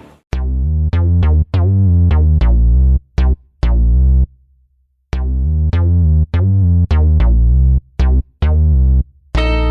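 Electronic background music: punchy synthesizer notes with a heavy bass over a drum-machine beat, dropping out for about a second in the middle before the beat returns.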